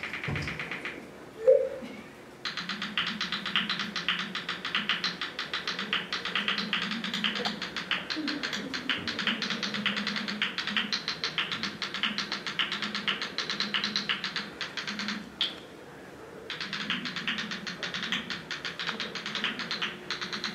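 Smartphone on-screen keyboard clicking rapidly as a text message is typed, in two long runs of quick key taps broken by a short pause a little after halfway. A brief loud blip sounds about a second and a half in.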